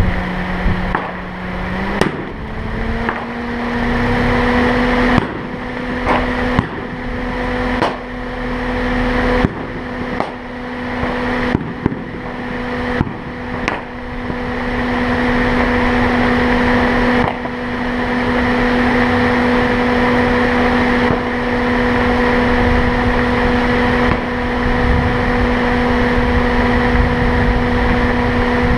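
A car driving along, with a steady engine hum and road noise. The engine's pitch steps up about two seconds in and then holds steady. Through the first half come a series of sharp cracks or knocks, one every second or two.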